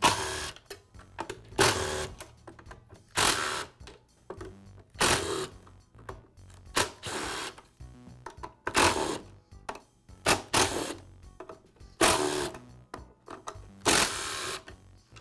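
Cordless screwdriver running in about ten short whirring bursts, backing out the screws of a band saw's plastic rear-handle half.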